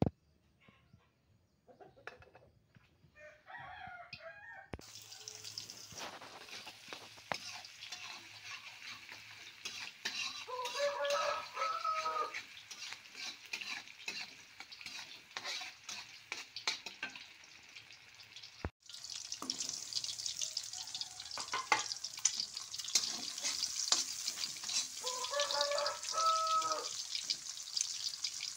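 Sliced shallots, garlic and chillies sizzling in hot oil in a wok, with a metal spatula clicking and scraping against the pan as they are stirred. The sizzling starts about five seconds in. A rooster crows twice, near the middle and near the end.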